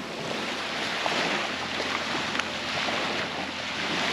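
Small waves washing onto a sandy beach, a steady rush that grows a little louder.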